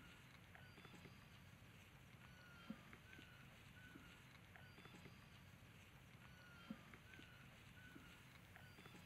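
Near silence: a faint repeating background loop of short chirps and ticks, with a soft thump about every four seconds.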